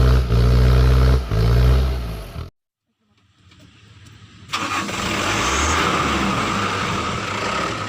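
Off-road vehicle's engine revving hard at a low pitch, dipping briefly twice, then cutting off abruptly about two and a half seconds in. After a moment of silence a noisier, hissing vehicle sound starts suddenly about four and a half seconds in and slowly fades.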